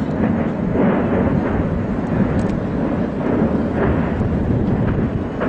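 Deep continuous rumble of an ammunition depot blowing up, heard from a distance, with a few faint sharper cracks from further detonations.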